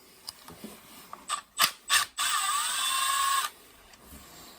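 A few sharp clicks, then a cordless driver runs for just over a second, its pitch dipping briefly under load before it stops suddenly, as a screw is backed out to free the furnace's failed hot surface igniter.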